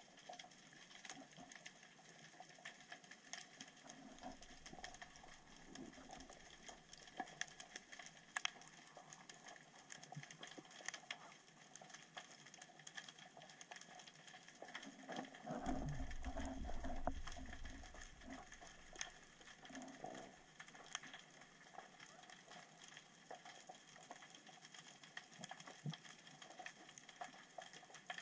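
Underwater ambience picked up through an action camera's housing: a faint steady hiss with many scattered sharp clicks and crackles. A louder low rumble lasts about two seconds midway.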